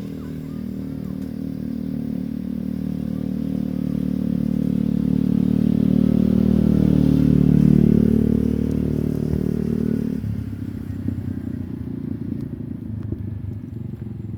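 A small engine running, growing louder to a peak a little past halfway and then easing off; about ten seconds in its tone drops to a rougher, lower putter.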